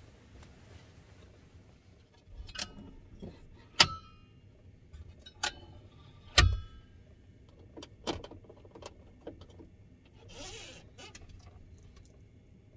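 A hinged wooden fold-down table being lowered and set up: a series of sharp knocks and clicks, several with a brief metallic ring from the fittings, and one heavy wooden thump about six seconds in. A brief rustle follows near the end.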